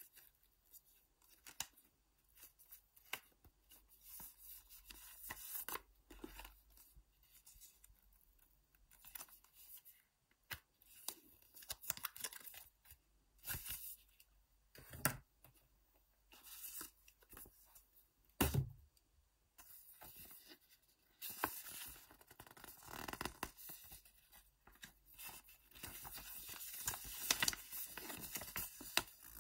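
Cardboard packaging and paper handled close up: light taps and clicks on the box insert, then rustling and crinkling of paper as the folded instruction leaflet is drawn out and unfolded, busiest in the last third. One low thump about two-thirds of the way through.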